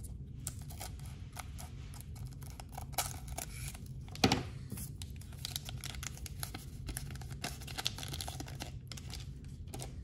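Scissors snipping open a foil trading-card pack, then the foil wrapper crinkling and rustling as it is opened and the cards are slid out. The loudest crackle comes about four seconds in.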